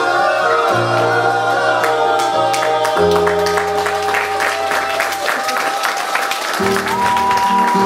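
Several voices singing together over long held instrumental chords as a musical number ends, with audience applause building from about two seconds in.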